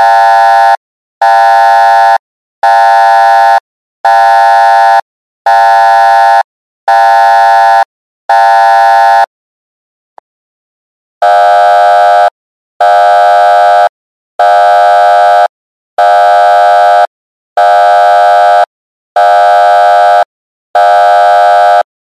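Loud electronic alarm sounding in harsh, steady one-second blasts, seven in a row about one and a half seconds apart. After a pause of about two seconds, a slightly lower-pitched version repeats the pattern with seven more blasts.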